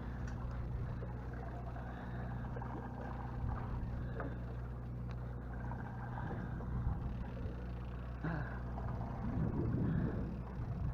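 Steady low hum of a sportfishing boat's engine running, with a rushing noise rising near the end.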